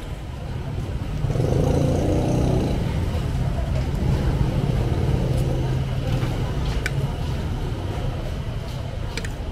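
A motorcycle engine running close by, growing louder about a second in and fading away after about six seconds. A metal spoon clinks against a plate twice near the end.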